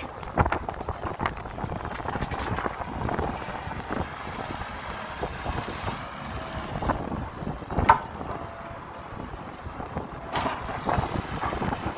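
Caterpillar hydraulic excavator's diesel engine running under load as it digs soil and dumps it into a dump truck's bed, with irregular knocks and clanks from the bucket and falling dirt, the sharpest about eight seconds in.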